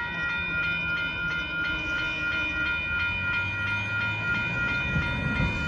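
Amtrak Texas Eagle passenger train going by, with a steady high ringing tone held throughout and a low rumble that builds about halfway through.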